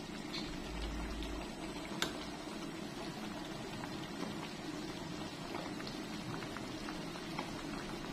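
A large aluminium pot of sour fish soup boiling hard with steady bubbling, stirred with a metal ladle. There is a single sharp click about two seconds in.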